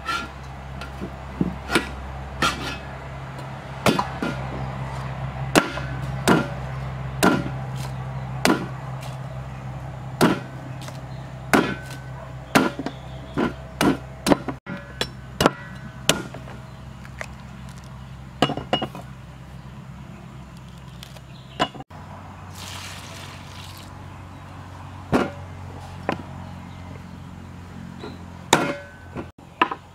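Heavy knife chopping into the husk of a young green coconut: a string of sharp whacks, irregularly spaced about a second apart, with a pause of a few seconds after the middle.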